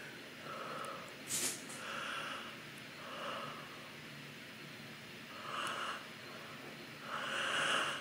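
A woman yawning: a series of short breathy inhales and exhales. There is a brief sharp sniff about a second and a half in, and the loudest, longest breath comes near the end as her mouth opens widest.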